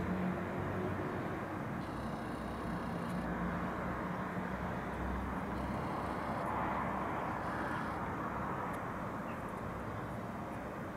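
City road traffic: a steady hum of cars, with one vehicle passing and swelling loudest about six to seven seconds in.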